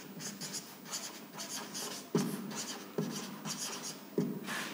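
Marker pen writing on a whiteboard in quick short strokes, with a few sudden louder strokes about two, three and four seconds in.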